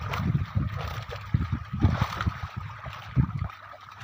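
Water splashing and churning in irregular slaps as a crowded mass of fish, largely catla, thrashes in a drag net pulled close to the pond bank. It eases off about three and a half seconds in.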